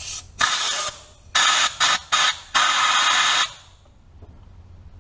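Compressed-air blow gun blasting into an open injector bore on a Cummins 12-valve diesel to clear out dirt after the injector has been pulled: several short blasts of rushing air, the last about a second long, then it stops.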